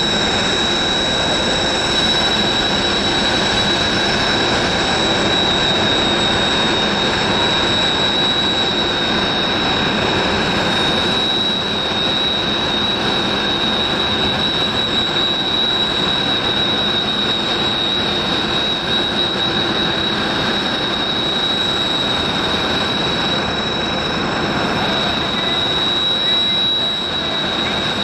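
A Kawasaki OH-1 and a Bell AH-1S Cobra helicopter flying past and away, their rotors and turboshaft engines giving a steady, high-pitched whine over a broad rushing noise.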